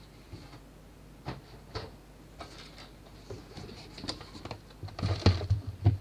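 Scattered light clicks and taps of handling, then a cluster of louder knocks and thuds about five seconds in as a cardboard shipping box is set down and moved about on a wooden desk.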